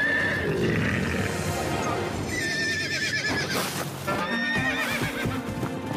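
A cartoon horse whinnying a few times, with a wavering neigh, over background music.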